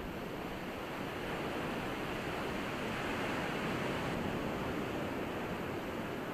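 Steady wash of ocean surf on a beach, swelling slightly about halfway through.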